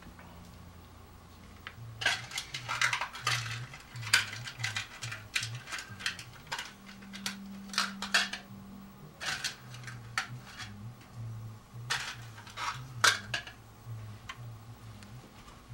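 Irregular clicks and light metallic clinks as hands work on the Philips CD mechanism inside an open CD player's chassis.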